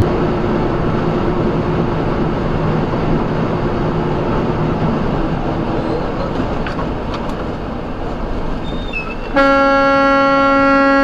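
Road and engine noise inside a semi truck's cab as it slows from highway speed. About nine seconds in, a truck horn sounds: one loud, steady held note, a warning at a truck cutting in close ahead.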